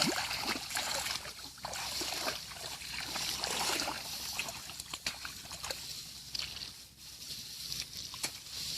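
Shallow water sloshing and splashing, a steady run of small splashes and drips, briefly quieter near the end.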